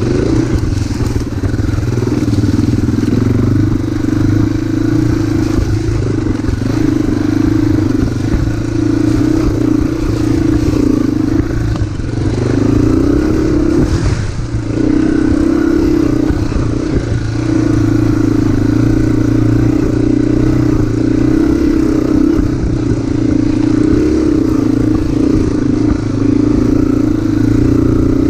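Motorcycle engine running steadily while riding, its pitch dipping briefly and picking up again about halfway through.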